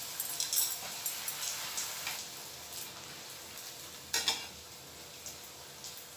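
Small pani puris sizzling and crackling in hot oil in an aluminium kadai, busiest in the first couple of seconds as fresh dough rounds go in. A metal slotted ladle knocks against the kadai about four seconds in.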